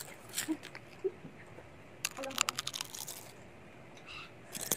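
Eating and fruit-handling sounds: a few soft clicks, then a dense run of crackly, crunching clicks about two seconds in, and a few more near the end.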